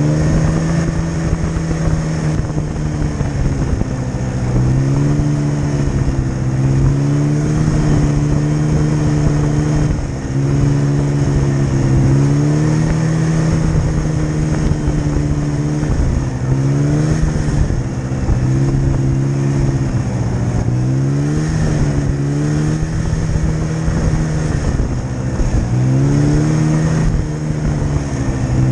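Snowmobile engine running while under way, its pitch repeatedly gliding up, holding, then dropping back every few seconds, over a steady hiss.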